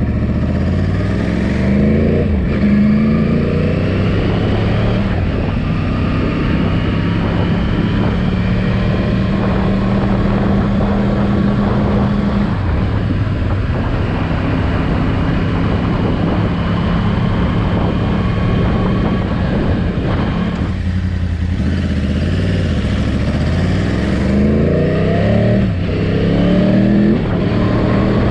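Yamaha R1 sport bike's inline-four engine under way: its pitch climbs through the gears near the start and again near the end, and it cruises at a steady note in between. The engine is being run in, so the throttle is opened gently.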